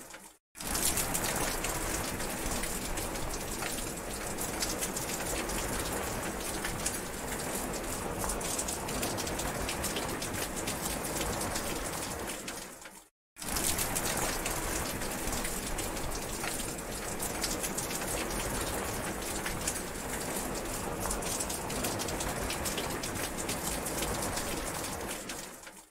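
Rain falling steadily, a dense hiss of drops pattering on surfaces. The sound cuts out to silence for a split second just after the start and again about halfway through, then resumes at once.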